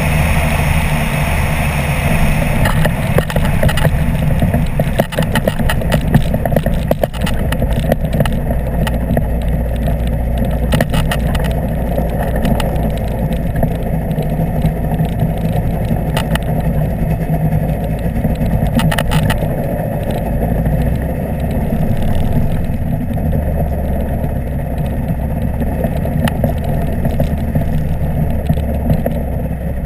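Apollo Jet Star microlight trike's engine and propeller running at low power through a landing roll and taxi, with airflow hissing over the microphone that fades about two and a half seconds in. Scattered clatters and knocks from the wheels and airframe on the rough strip come in the first dozen seconds and again briefly later, over the steady engine hum.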